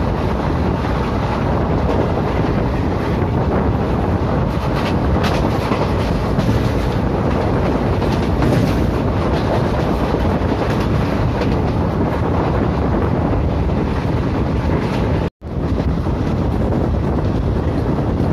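Indian Railways passenger train running at speed, heard from aboard a coach: a steady rush of wheels on rail with wind buffeting the microphone, and a few sharp clicks between about four and nine seconds in. The sound cuts out for a split second about fifteen seconds in.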